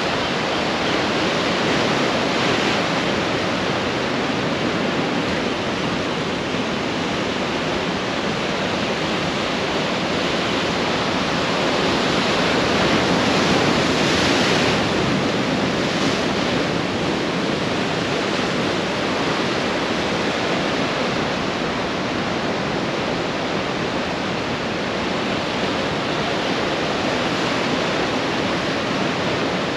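Ocean surf washing onto the beach: a steady rush of breaking waves that swells to its loudest about halfway through.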